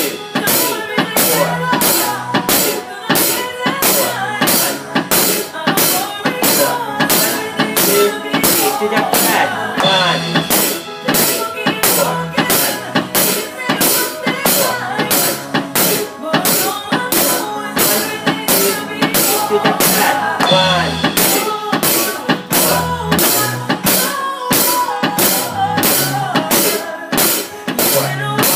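A steady drum beat played on an electronic drum kit over a recorded song with melody, with sharp strikes at even spacing.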